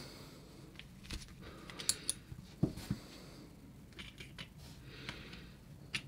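Faint, scattered small clicks and scrapes from a precision screwdriver working the tiny case screws of a DJI Air Unit.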